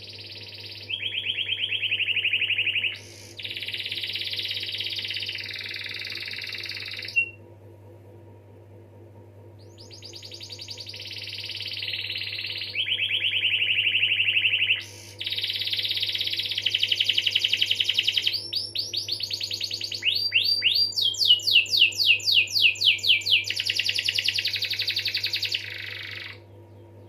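Domestic canary singing long rolling trills: several sections of very fast repeated notes, each held for a couple of seconds and then switching pitch, with a pause of a few seconds about a third of the way in. Near the end comes a run of quick falling whistled notes before the trills resume. A steady low hum sits underneath.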